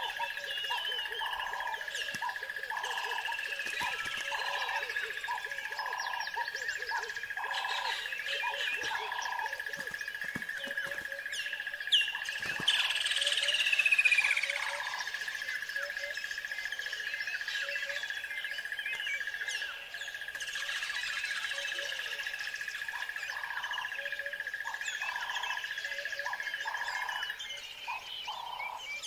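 Several birds calling and chirping over a steady high tone. Low notes repeat about twice a second, and a louder call sweeps downward in pitch about thirteen seconds in.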